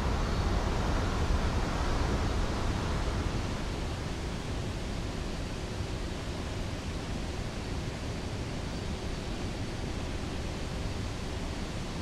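Rushing water making a steady, even noise with no distinct splashes. It is a little louder for the first three seconds or so, then settles slightly quieter.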